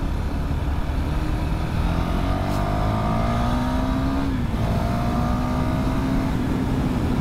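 KTM 390 Duke's single-cylinder engine running while riding, its pitch slowly climbing, dipping slightly a little over four seconds in, then holding steady.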